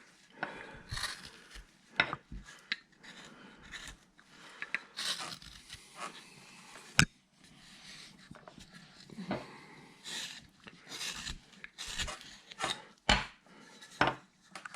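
Hand carving knife shaving wood in short, irregular scraping strokes, with scattered sharp clicks and knocks as tools are handled and a blade is swapped for a larger upsweep blade.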